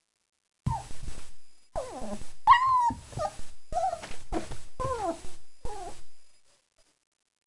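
Four-week-old German Shepherd puppies whining and whimpering: a run of about seven short, high cries that bend and fall in pitch, starting about a second in and stopping near the end.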